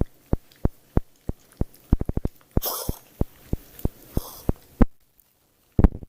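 A pet coughing: two harsh, rasping coughs, one about two and a half seconds in and one about four seconds in, amid a run of short, sharp clicks.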